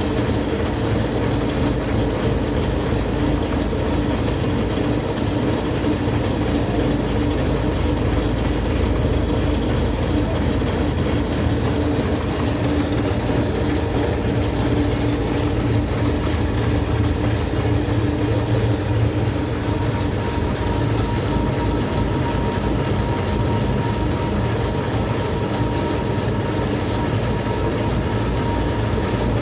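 Lathe running and cutting a workpiece: a steady mechanical running noise with a rattle of gears and a few faint steady whining tones.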